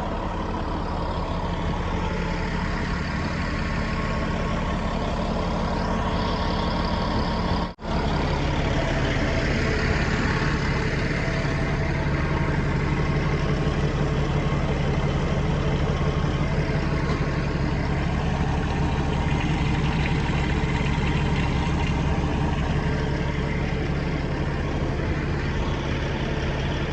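Caterpillar bulldozer's diesel engine idling steadily, with the sound dropping out for an instant about eight seconds in.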